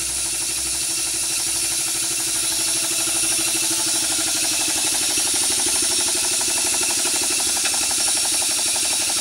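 A 1-inch scale Minnie live-steam traction engine running on the bench, its exhaust beating in a rapid, even chuff over a steady hiss.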